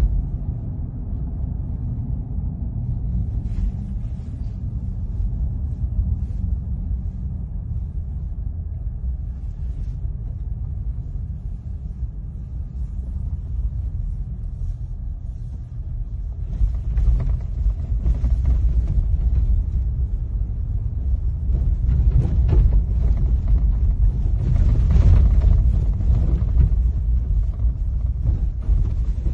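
Low, steady rumble of a car in motion heard from inside the cabin: engine and tyre road noise. About halfway through it grows louder and rougher, with a gritty hiss over the rumble as the road turns to dust and dirt.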